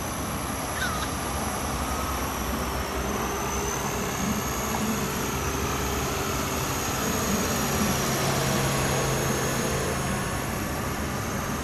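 Battery-powered radio-controlled model helicopter in flight: the steady whine of its electric motor and the whir of the rotor blades, slightly louder about eight seconds in.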